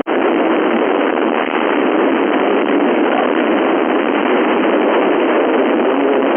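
FM radio receiver on the 11-metre band putting out loud, steady hiss with the squelch open, no signal on the channel. A brief cut at the very start marks the end of the previous transmission.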